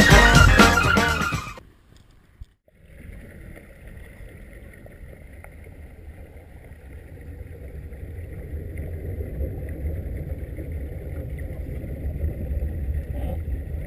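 Background music fading out, then a steady rushing rumble of a snowboard sliding over snow with wind on the microphone, slowly growing louder.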